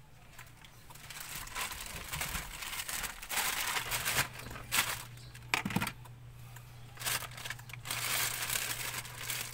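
Plastic bag crinkling and rustling in irregular bursts as it is handled and opened.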